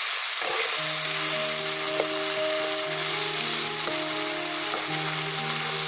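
Chopped onion, capsicum and tomato sizzling as they fry in hot oil in a wok, stirred with a spatula. Soft background music with long held notes comes in about a second in, under the sizzle.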